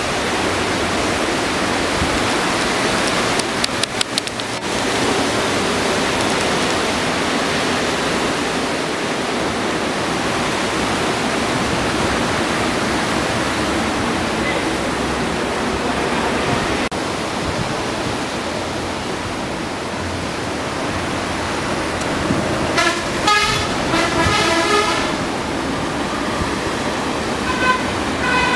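Steady rush of surf and wind. A few sharp clicks come about four seconds in, and two clusters of short, pitched toots come late on.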